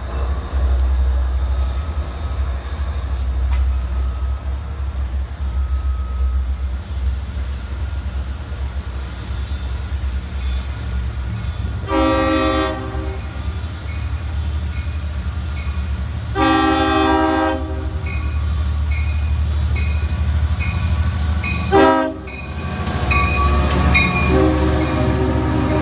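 Diesel-electric passenger trains passing, with a steady low engine and wheel rumble. An approaching DE30AC locomotive sounds its multi-chime air horn in the long, long, short, long grade-crossing pattern, starting about halfway through, while a bell rings at a steady pace. The train is passing close by at the end.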